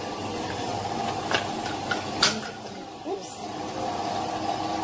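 Kitchen items being handled on a worktop, two short sharp knocks, over a steady low hum.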